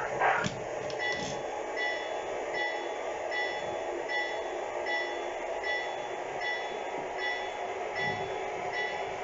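O-scale model train's sound system ringing a locomotive bell, a short ring about every three-quarters of a second, over a steady running hum.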